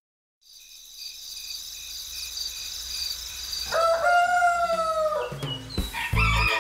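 A rooster crowing once, one long held call about four seconds in, over a high steady chirring; music with a deep beat starts near the end.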